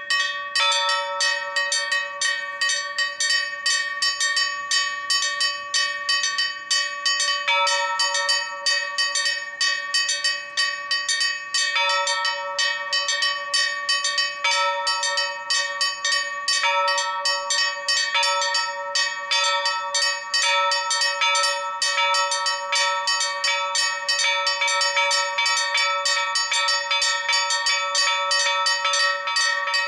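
Four bronze church bells rung together in a Maltese festive peal (mota): rapid, unbroken strikes on several pitches that overlap into a continuous ringing, with the pattern of notes shifting every few seconds.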